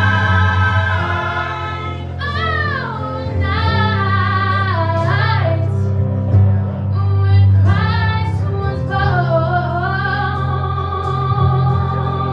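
Gospel choir singing, a woman leading into a microphone with sliding, melismatic runs over the choir's held notes.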